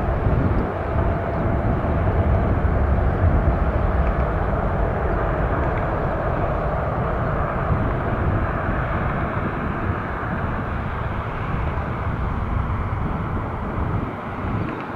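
Airbus A350-900's Rolls-Royce Trent XWB turbofans at takeoff power as the airliner climbs away: a steady deep jet rumble that fades slightly toward the end.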